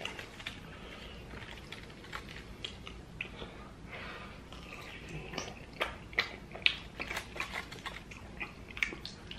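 Close-miked chewing and mouth sounds of a man eating pizza: wet clicks and smacks, sparse at first and coming thick and fast in the second half.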